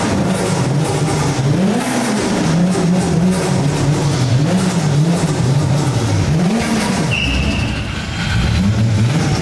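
Nissan Skyline R34's straight-six engine revving, the revs swinging up and down about every two seconds as the car rolls forward. A short high squeal about seven seconds in.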